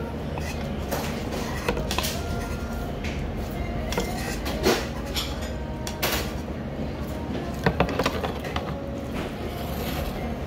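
Bowls and tableware knocking and clinking on a table over a steady low hum of restaurant noise. The loudest knock comes a little before halfway, and a quick cluster of knocks about three-quarters in, as a bowl is set down.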